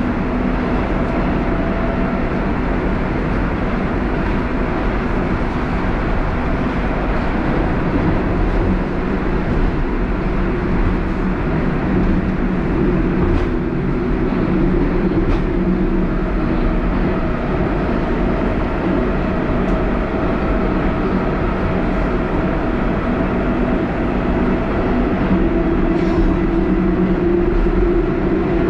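Moscow Metro 81-740/741 Rusich train running between stations, heard from inside the passenger car: a steady, loud rumble of wheels on rails and tunnel noise, with a few faint steady whining tones above it. It grows slightly louder near the end.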